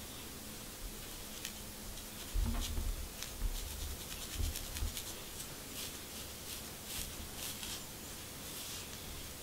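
Black fine-tooth plastic comb scratching across a flaky, dandruff-covered scalp in short quick strokes, more frequent in the second half. A few dull bumps of handling come between about two and a half and five seconds in.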